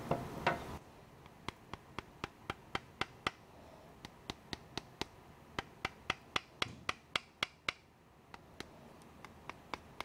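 Sharp metallic clicks of an 1851 Navy percussion revolver's action being worked by hand, coming about four a second for several seconds, then a few sparser clicks near the end. A brief rubbing scrape comes at the very start.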